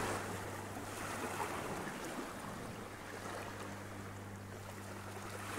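Small waves washing against shoreline rocks on a calm sea: a soft, even hiss of surf that slowly fades, with a faint steady low hum underneath.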